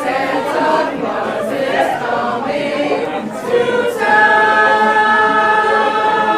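A group of people singing together, settling about two-thirds of the way in onto a long held chord.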